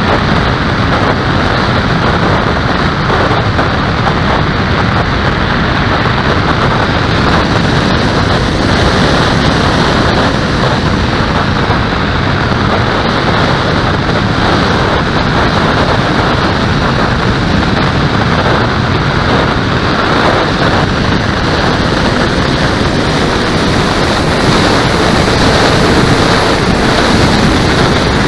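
Steady loud rush of airflow over the microphone of a camera riding on a model aircraft in flight. A faint whine rises near the end as the plane swoops low.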